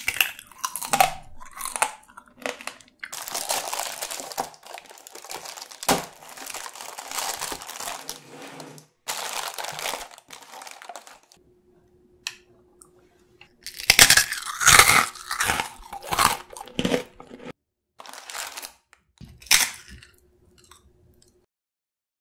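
Close-up eating sounds: crunching and chewing through the thin, agar-set sugar shell of candied mandarin tanghulu. After a short pause about halfway, sharp, loud crunches of bites into airy honeycomb dalgona toffee.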